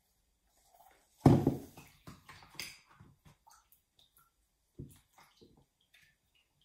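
A bowl of plaster set down on a table with a knock about a second in, followed by light clicks and taps of things being handled on the tabletop and a second, smaller knock a few seconds later.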